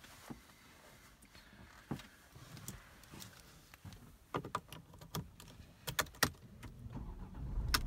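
Car keys jangling and clicking as the key goes into the ignition switch of a Mercedes-Benz E250, then near the end its 2.1-litre four-cylinder diesel engine starts straight up and runs with a low rumble.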